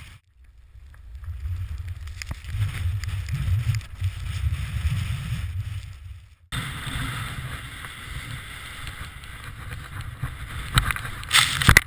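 Wind rumbling on an action camera's microphone while a snowboard slides through powder snow. The sound drops out briefly at the start and again about six and a half seconds in, and a few loud knocks come near the end.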